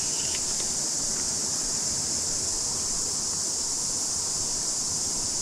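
Steady chorus of cicadas, a continuous high-pitched buzz, over a low, even hiss.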